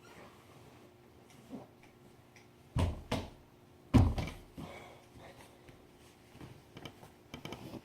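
A few sharp knocks: two about three seconds in, then the loudest, a heavy thump, a second later, followed by a run of small clicks near the end.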